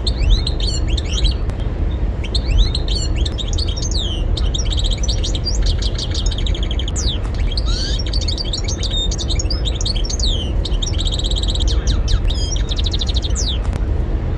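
European goldfinch singing a long, fast twittering song of chirps and quick trills, over a steady low rumble.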